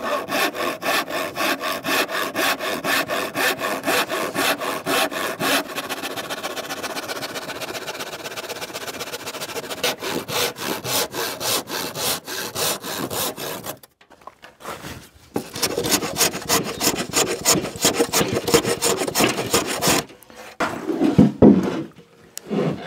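Hand saw cutting through a wooden stair riser in steady back-and-forth strokes, trimming off the end that stands proud of the tread. The sawing pauses about 14 s in, resumes briefly, stops around 20 s, and a few knocks follow near the end.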